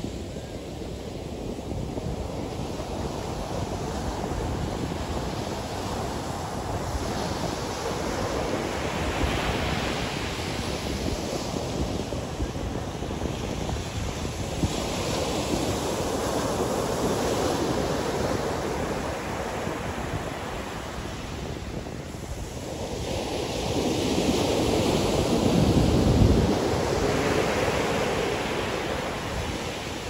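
Ocean surf breaking and washing up on a sandy beach, swelling and ebbing every several seconds, with the loudest wave crash near the end. Wind buffets the microphone with a low rumble.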